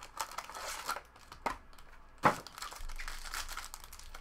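The foil-wrapped pack from a 2016 Topps Tier One baseball box being handled as the box is opened, its wrapper crinkling and rustling. There are a few sharp clicks and knocks, the loudest about two seconds in.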